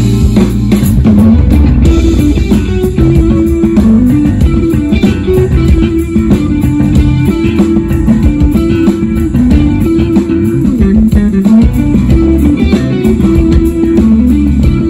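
Japanese jazz fusion band playing live: electric guitar and electric bass over a drum kit and keyboards. A busy line in the low register is prominent.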